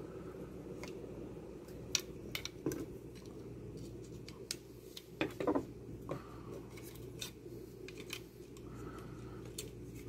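Scattered small sharp clicks and scrapes of plastic on plastic: a microwave door-interlock micro switch being handled, pulled and pushed into its plastic switch holder, with a screwdriver working the holder's small locking pin.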